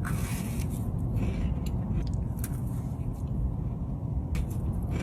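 A person chewing a bite of crumble cookie, with a few faint short clicks over a low steady background noise.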